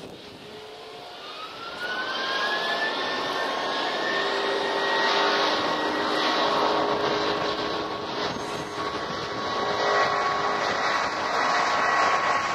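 The Airbus A310-304's two GE CF6-80C2 turbofans spooling up. A whine rises in pitch and the engines grow much louder over the first two to three seconds, then hold steady at high power with a dense jet rush. This is thrust being set for the takeoff.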